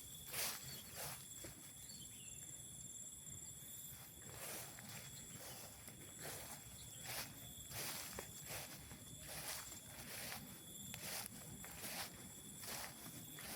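A hiker's footsteps on a trail, about two steps a second with a short pause a couple of seconds in. Under them runs a steady, high-pitched insect buzz.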